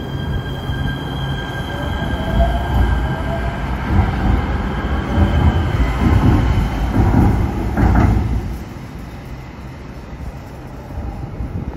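Los Angeles Metro light rail train pulling out and passing close by: a rumble of wheels on rail, with the electric drive's whine rising in pitch as it accelerates and a steady high wheel squeal over the top. The rumble is loudest as the cars go by and drops off suddenly about eight and a half seconds in as the last car clears.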